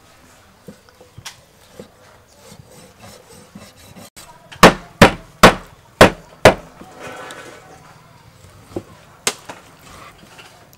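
Meat cleaver chopping raw pork on a thick round wooden chopping block: five hard chops in quick succession, about two a second, near the middle. Lighter knocks of the blade on the wood come before and after.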